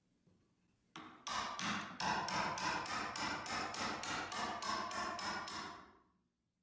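A hammer tapping a handmade steel woodworking chisel in quick, even strokes, about three to four a second, as the chisel cuts into hardwood end grain. The strikes begin about a second in and fade out near the end.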